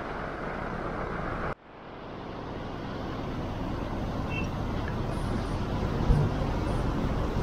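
Steady road noise inside a moving car, cut off about a second and a half in and replaced by the rumble of street traffic, which grows steadily louder. There is a brief low thump about six seconds in.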